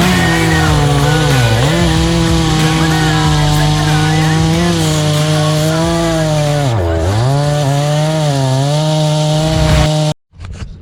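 Two-stroke chainsaw running at high throttle while cutting pine, its pitch dropping sharply twice, about a second and a half in and again about seven seconds in, as it bogs under load in the cut. The sound cuts off abruptly near the end.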